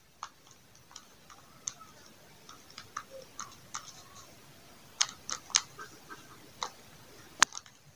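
Pen writing on a notebook page: scattered short scratches and taps of the tip on the paper, with a few sharper clicks about five seconds in and near the end.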